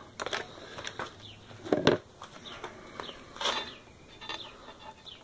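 Handling noise as multimeter test probes and leads are fumbled into place: scattered light clicks and rubs, with a louder knock about two seconds in.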